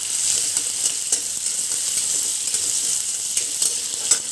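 Chopped onion sizzling steadily as it is stir-fried in hot oil with cumin seeds in a kadhai, with a few sharp clicks of the spatula against the pan.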